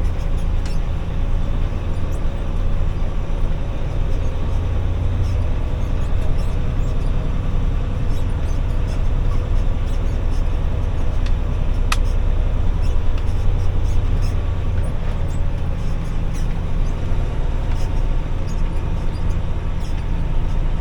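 Engine of a heavy 6x6 off-road rollback tow truck running steadily under way, a deep steady drone with scattered clicks and rattles, one sharp tick about halfway through.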